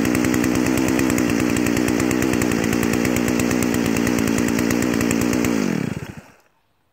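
Stihl 034 Farm Boss two-stroke chainsaw running at a steady idle just after being kick-started, then dying away about six seconds in.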